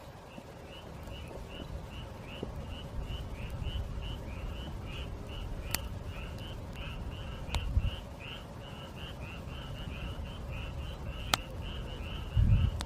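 A frog calling steadily in an even run of short croaks, about three a second, with a few sharp pops from a crackling campfire and a couple of low thumps.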